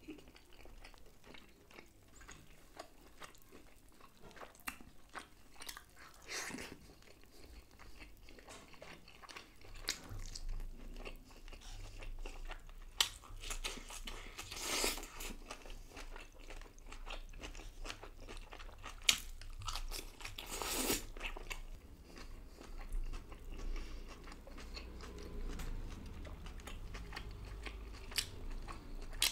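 A person eating tandoori sole fish by hand: soft chewing and biting, with scattered crunches and small clicks, and a few louder bites about halfway through.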